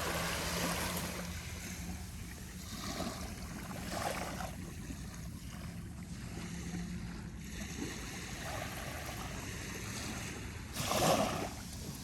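Small ocean waves on calm water breaking gently on the beach: soft washes rise and fade every few seconds, and the largest comes near the end.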